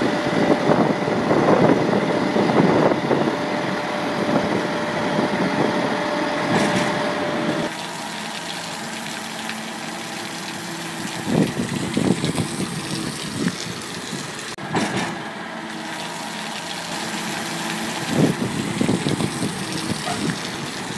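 Foden 8×6 truck's turbodiesel engine running under load with a steady whine while the hook-loader arm lifts an armoured vehicle onto the bed. About eight seconds in the sound drops sharply, and the engine idles more quietly, with a few clanks and knocks.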